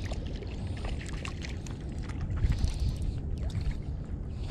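Wind rumbling on the microphone over scattered clicks and a brief splash, as a small hooked fish is reeled in to the shore on an ultralight spinning rod.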